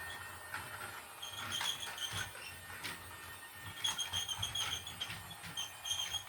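Toy steam train set running in the background: groups of short, high-pitched chirping squeaks, repeated in quick runs, with a few clicks in between.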